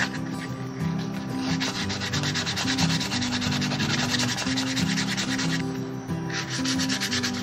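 Sandpaper on a hand block rubbing rapidly back and forth over padauk wood knife-handle scales, with a brief pause near the end, over background music.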